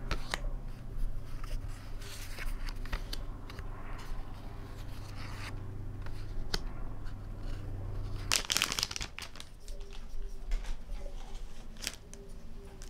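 Paper pages of a printed desk calendar being leafed through and handled, with scattered crisp rustles and light clicks and one louder rustle a little past halfway. A low steady hum runs underneath and stops just before that louder rustle.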